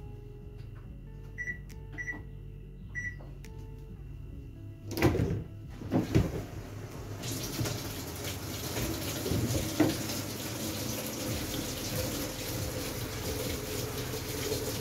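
Top-loading washing machine starting a wash: three short control-panel beeps, then from about five seconds in water rushing steadily into the drum as it fills.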